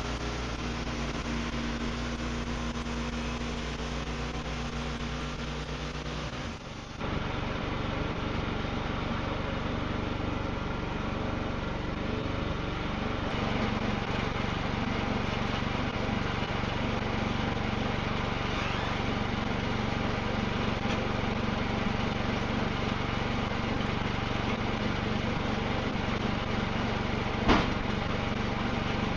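Wood-Mizer LX55 portable bandsaw mill running steadily as it saws a white oak log. The sound dips briefly and changes about seven seconds in, and there is one sharp click near the end.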